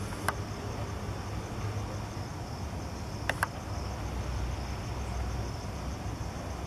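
Crickets chirping in a steady, evenly pulsing high trill, over a low steady rumble, with a sharp click near the start and two more about three seconds in.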